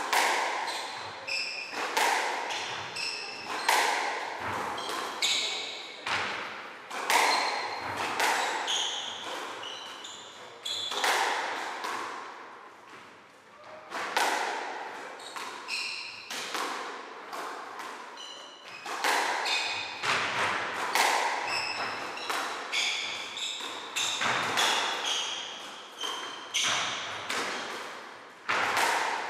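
Squash rally: the ball struck by rackets and smacking off the court walls, at times more than once a second, each hit echoing around the court, with short high squeaks from the players' shoes on the wooden floor. Play breaks off briefly near the middle, then starts again.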